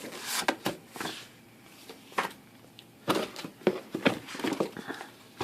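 Papers and packaging being handled and shuffled: scattered rustles and light knocks.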